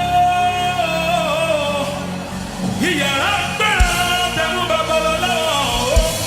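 Gospel song: a singer holds long notes that slide downward, over sustained low accompaniment. A new sung phrase starts about three seconds in, and two drum thuds come near the end.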